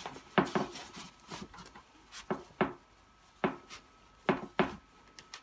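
Handling noise from a Bugaboo Fox carrycot frame and fabric: about eight short, sharp plastic clicks and knocks, several in quick pairs, as the fabric's sewn-in plastic rib is worked into the frame's groove.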